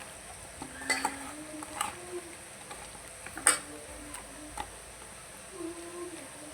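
Raw chicken pieces being mixed by hand with spices and ginger-garlic paste in a bowl: soft squelching and stirring with scattered clicks and knocks against the bowl, the sharpest about three and a half seconds in.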